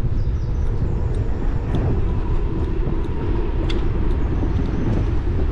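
Steady wind rumble on an action camera's microphone while riding an e-bike, mixed with tyre noise on the paved cycle path and a few small rattles and clicks.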